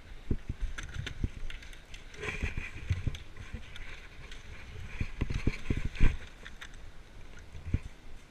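Irregular footsteps and rustling of gear and brush from a player moving on foot, heard through a helmet-mounted camera, with a few louder bumps about two and six seconds in.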